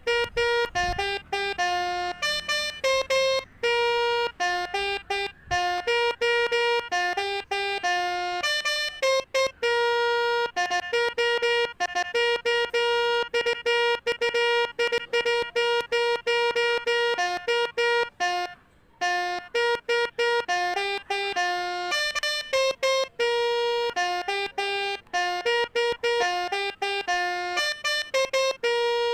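Telolet basuri multi-tone horn playing a tune: a quick run of short and held notes that switch on and off sharply, with a brief break about two-thirds through.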